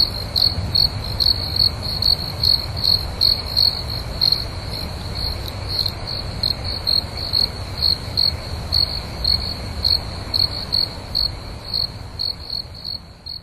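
Crickets chirping at night: a high-pitched chirp repeating about two to three times a second over a steady low background rumble, fading out near the end.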